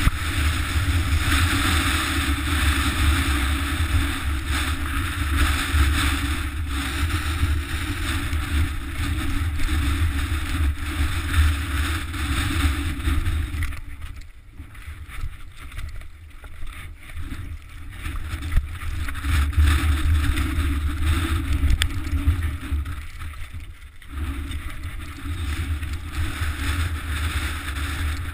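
Wind buffeting a helmet-mounted action camera's microphone with a heavy low rumble, mixed with the mountain bike's tyres and frame rattling over loose rock. The rumble eases twice, about halfway through and again near the end.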